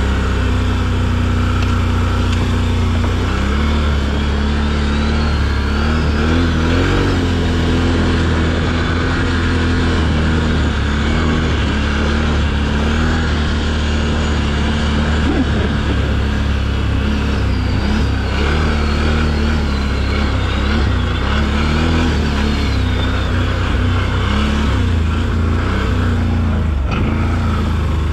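Can-Am Renegade ATV's V-twin engine running under way, its pitch rising and falling again and again as the throttle is worked over uneven trail.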